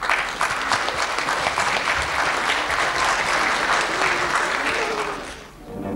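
Audience applauding, dying away about five seconds in as the orchestra begins to play.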